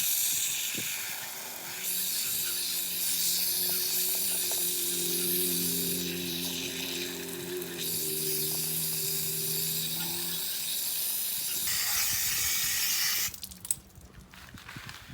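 A loud, steady hiss, cutting off suddenly near the end, with a few low steady tones beneath it for most of its length.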